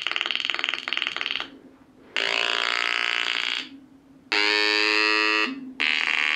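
Four 555-timer Atari Punk Console synths buzzing out harsh square-wave notes in turn through small speakers, each note lasting about a second with short gaps between, as the spinning rotor's brushes power one level after another like a step sequencer. A low steady hum runs under the gaps.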